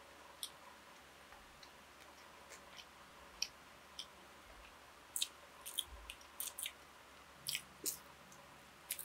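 Close-up eating sounds: scattered short, sharp mouth clicks and smacks of chewing, sparse at first and coming thicker in the second half.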